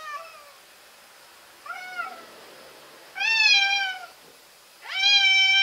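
Domestic cat yowling at a rival cat in a face-off, the threat calls of a cat fight. There are four drawn-out wailing calls that rise and then fall in pitch: two short ones early, then a louder one a little after three seconds, and a long one starting near five seconds.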